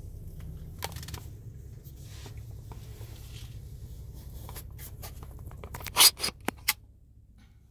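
Handling noise of a phone camera being gripped and moved inside a car: rustling and scraping, with a quick cluster of sharp knocks about six seconds in, the loudest sounds. A low steady rumble in the cabin underneath drops away near the end.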